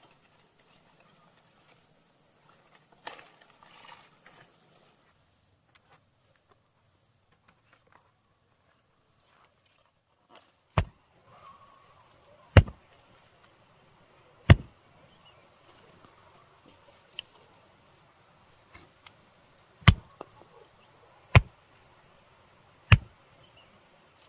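Six sharp, single strikes of a tool, the first about ten seconds in, spaced one and a half to five seconds apart, over a steady high-pitched insect drone.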